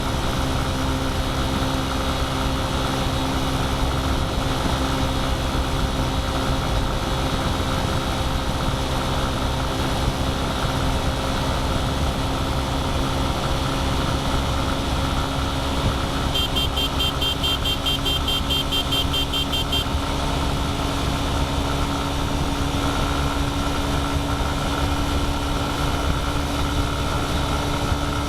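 A vehicle's engine and road noise at a steady highway cruise, a continuous drone with a held pitch. About midway, a rapid series of high beeps sounds for some three seconds.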